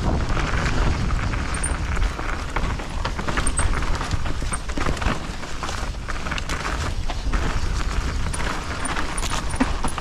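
Mountain bike riding down a rough trail: tyres running over rocks and roots, with frequent sharp clicks and knocks of the bike rattling, over a steady low rumble.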